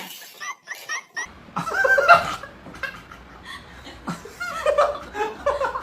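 People laughing in short bursts of chuckles and snickers.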